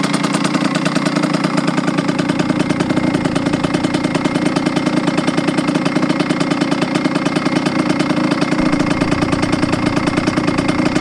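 Kawasaki KX80 two-stroke single-cylinder engine idling steadily with a fast, even beat, freshly rebuilt with a new piston and crankshaft.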